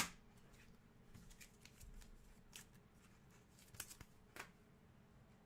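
Faint handling of trading cards: a sharp click at the start, then a few soft flicks as cards are slid and flipped through.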